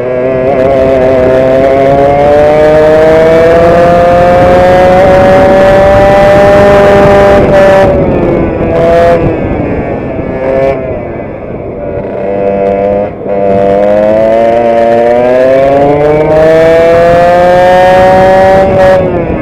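Vintage racing kart's two-stroke engine at full throttle, heard on board: the pitch climbs steadily for about seven seconds, drops as the throttle comes off about eight seconds in, stays lower through the corner, then climbs again for several seconds and falls off near the end.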